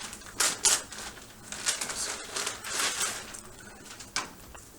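Paper rustling and crinkling in short bursts, loudest in the first second: a sealed bid envelope being opened and its pages handled.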